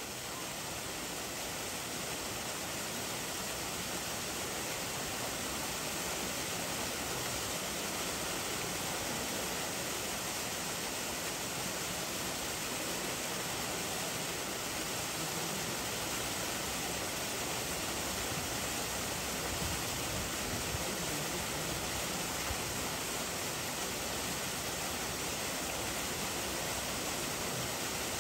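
A steady, even rushing noise that holds unchanged throughout, with no distinct events.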